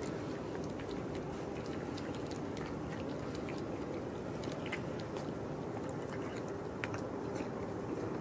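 Two cats chewing and licking wet food from a plastic tub, a stream of small wet smacking clicks, over a steady low background rumble.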